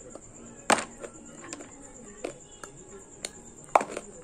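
Close-up crunching of dry multani mitti (fuller's earth clay) chunks being bitten and chewed. The crunches are sharp and irregular, the loudest about a second in and another strong one near the end.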